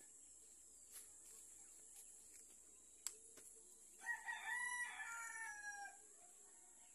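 A rooster crowing once, starting about four seconds in and lasting about two seconds, falling in pitch at the end. A single sharp click comes just before it, over a steady high hiss.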